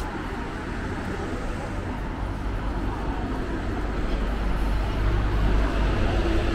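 City road traffic: cars and a double-decker bus running past, a steady low rumble with road noise that grows louder in the second half.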